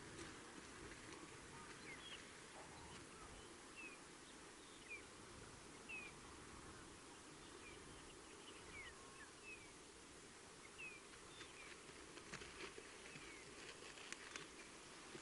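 Faint open-air ambience with a low rumble and scattered short, high chirps that fall in pitch, roughly one every second or so, with a few faint clicks near the end.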